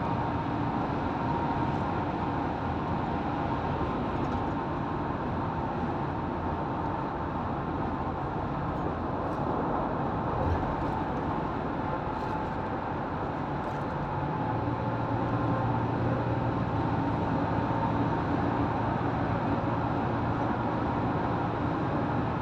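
Steady road and engine noise inside a car's cabin at highway speed, with a low hum that grows stronger about two thirds of the way through.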